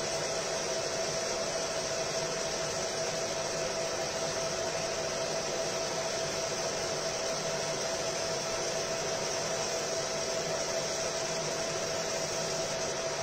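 Fiber laser marking machine running during engraving: a steady whirring hiss with a constant mid-pitched whine that does not change.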